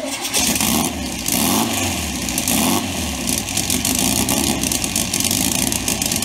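Turbocharged VW Beetle 2276cc air-cooled flat-four engine running, its turbocharger spinning with the compressor inlet open, giving a loud rushing hiss over the engine note.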